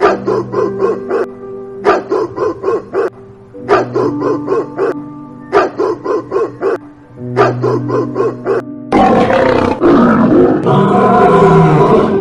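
Background music with a repeating phrase of short pulsed notes, about every two seconds, over held tones. For the last three seconds, a loud rough animal call, a roar, takes over.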